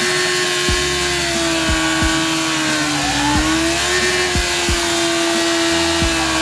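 Sport motorcycle engine held at high, steady revs while the rear tire spins in a burnout, with a slight dip in pitch about three seconds in.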